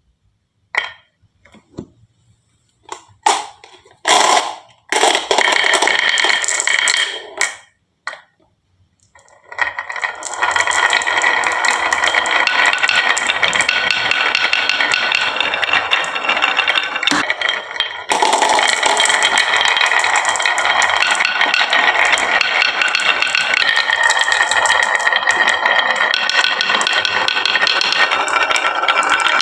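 Marbles clattering down a wooden HABA marble run: a few separate clicks and knocks at first, then from about nine seconds in a dense, continuous rattle as many marbles roll and bounce along the track.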